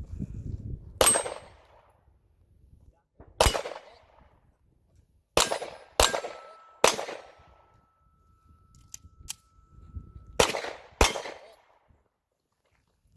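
Seven open-class competition pistol shots fired at steel targets in an uneven string: single shots about two seconds apart, a quicker group of three, then a pair near the end. A faint steady ring hangs between the middle group and the final pair.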